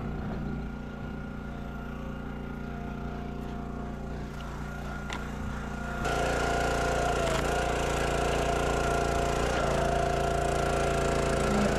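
The small gas engine of a log splitter running steadily, getting abruptly louder about halfway through.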